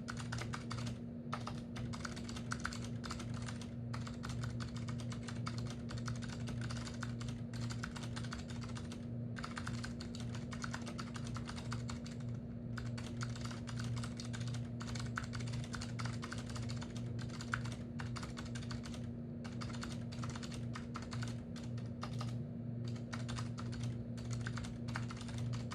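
Typing on a Data General 6312-K keyboard with Acer Alps clicky switches over membrane: a fast, steady run of clicky keystrokes with a few brief pauses. A steady low hum runs underneath.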